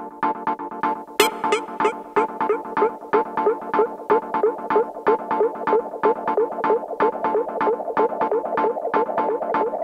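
Electronic synthesizer music with a steady, quick pulse over held tones; a wavering synth line comes in about a second in.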